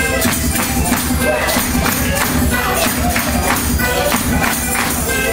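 Portuguese folk music, a malhão, played with a drum and jingling hand percussion keeping a steady, lively beat.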